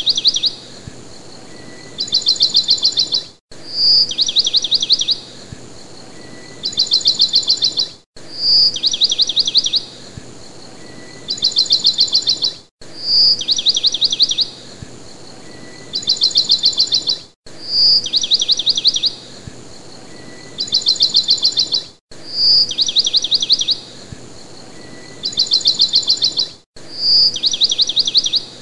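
Looped birdsong track: a short clear whistle followed by two fast rattling trills, the same phrase repeating identically about every four and a half seconds, with a brief dropout between repeats.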